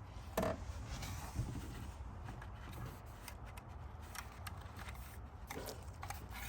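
Engine oil dipstick being wiped clean by hand: a faint, soft rustle with a few light ticks.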